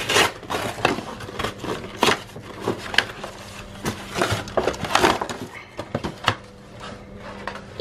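Cardboard toy packaging being handled and opened: irregular rustling, scraping and small knocks as the outer box is pulled apart and the inner cardboard tray slid out.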